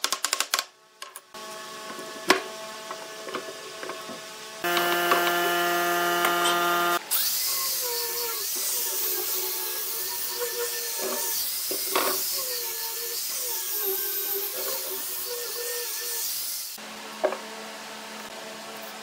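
Handheld angle grinder with a sanding disc. About five seconds in, its motor starts with a steady whine. It then sands a wooden wheel with a loud hissing scrub for about ten seconds before stopping. A few mallet knocks sound in the first second.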